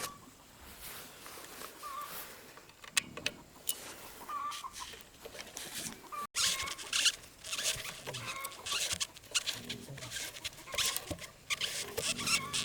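Irregular scraping, rustling and clicking of hand work, with a few short squeaks, busier in the second half; no engine running.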